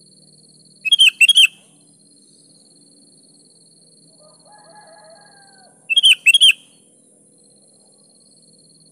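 Sooty-headed bulbul (kutilang) calling: two short bursts of quick, high notes about five seconds apart, over a faint steady high-pitched tone.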